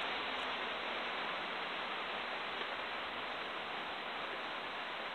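Steady rain, an even hiss that holds level throughout.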